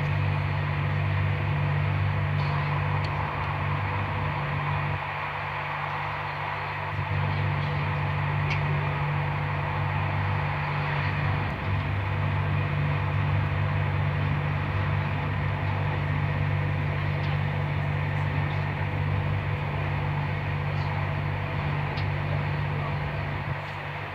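Running noise inside a Corail passenger coach travelling at speed: a steady low hum and rumble, easing slightly for a couple of seconds about five seconds in, then steady again and dropping a little just before the end.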